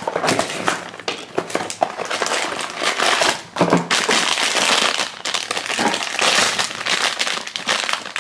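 A metallic foil blind-bag pouch being torn open and crumpled by hand, a dense crackling crinkle that keeps up in rapid bursts.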